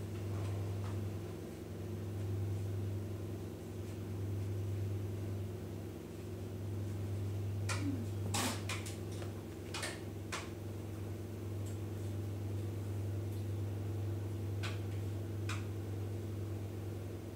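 A steady low electrical hum, with a quick run of sharp clicks and knocks about eight to ten seconds in and two more a few seconds later.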